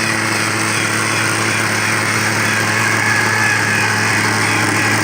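Schlüter Cobra radio-controlled model helicopter running steadily: a small model engine's continuous buzz with a constant low hum underneath.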